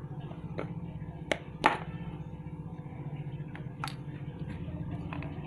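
Molded plastic first aid box being handled and snapped open: a few sharp plastic clicks from the latches and lid, the loudest about a second and a half in. A steady low hum runs underneath.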